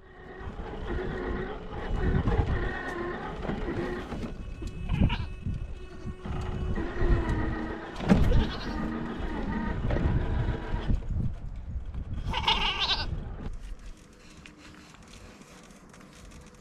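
Goats bleating over and over in wavering calls, with a higher, brighter bleat about twelve seconds in. A low rumble and a few sharp knocks run underneath, and it all turns quieter after about fourteen seconds.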